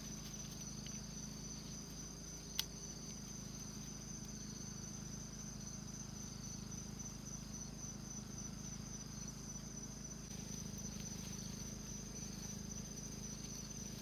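Night insect chorus: crickets and other insects trilling in one steady high-pitched band, with a single sharp click about two and a half seconds in.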